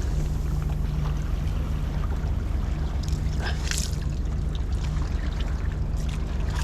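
Steady low mechanical hum, like an engine running, with a few brief crackles about three to four seconds in.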